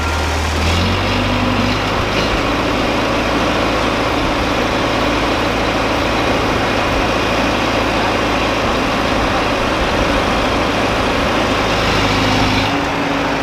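Diesel engine of a Hydra mobile crane running steadily and loudly. It revs up about a second in, holds at the higher speed while the crane works its boom, and eases back down near the end.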